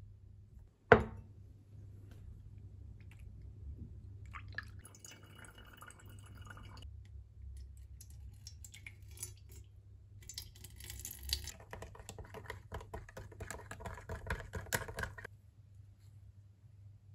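A single sharp tap about a second in, then spells of small clinks and trickling liquid as a blue copper-salt solution is mixed in a glass beaker and poured out onto a metal plate.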